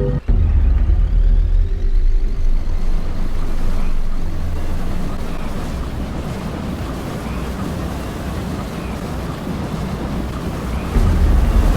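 Strong storm wind buffeting the microphone: a loud low rumble with a rushing hiss above it. It eases after about two seconds and surges again near the end.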